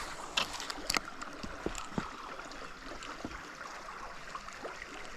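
Creek water running steadily, with a few sharp small clicks and splashes scattered through it, the first about half a second in.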